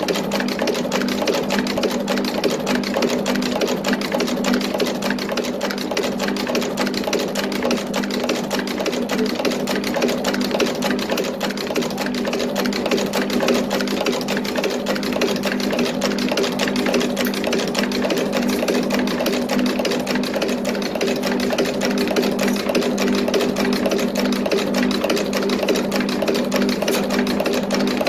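Box chain making machine running at speed: a rapid, even clatter of its forming tools over a steady low hum.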